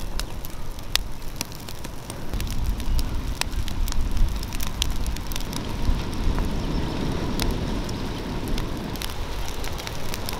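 Cooking fire crackling, with many irregular sharp pops over a steady low hiss of burning.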